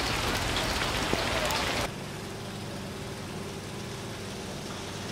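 Rain hissing steadily on flooded street water, with scattered drips and splashes. It cuts off abruptly about two seconds in, giving way to a quieter steady low hum.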